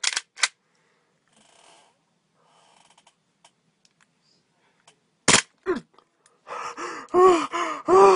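Two sharp clicks, then one sharp crack about five seconds in from a gas airsoft Glock 18 pistol rigged to drive a toothbrush. A man follows with short muffled cries, two or three a second, around the toothbrush in his mouth.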